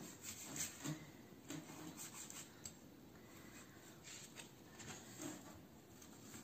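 Faint, irregular rustling and rubbing from hands handling a crumpled, crinkly material on a tabletop, with a few light scrapes.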